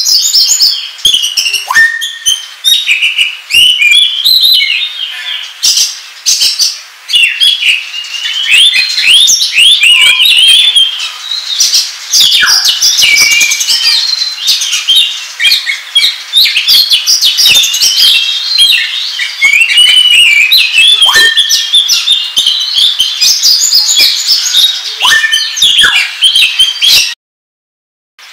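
Oriental magpie-robin singing hard and without pause: a fast, varied stream of high chirps, trills and harsh notes, broken by a few long whistles that slide down in pitch. The song cuts off into about a second of silence near the end, then starts again.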